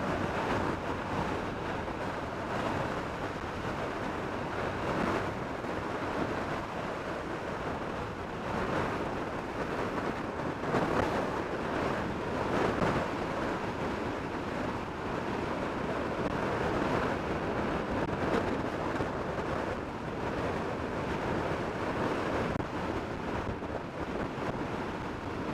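Steady rush of wind on the microphone of a motorcycle-mounted camera at road speed, mixed with the bike's running noise, swelling a little now and then.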